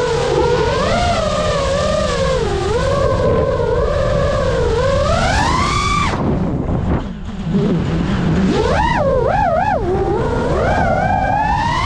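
FPV quadcopter's motors and propellers whining, the pitch rising and falling with the throttle through aerobatic moves. About six seconds in the throttle is cut and the whine drops away briefly. It then comes back warbling quickly up and down a few times, over a low rush of wind.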